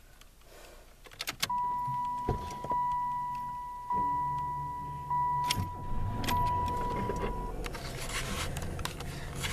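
A 1996 Oldsmobile Cutlass Supreme being started from the driver's seat. A couple of clicks from the key are followed by a steady high warning tone that lasts several seconds. The V6 engine then starts about halfway through and settles into idle.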